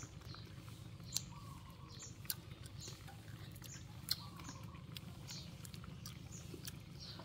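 Faint bird chirps, short falling notes repeating about once a second, over a steady low background hum, with three sharp clicks.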